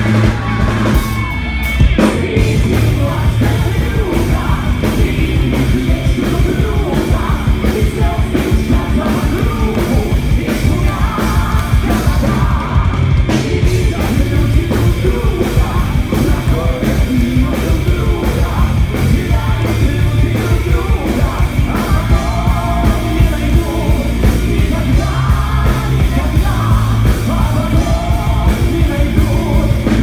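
Live rock band playing with a steady driving beat, with male and female voices singing loudly over electric guitars and drums.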